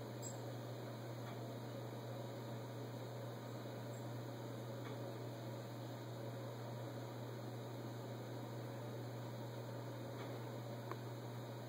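Steady low electrical hum over a soft hiss, with a few faint, irregular ticks.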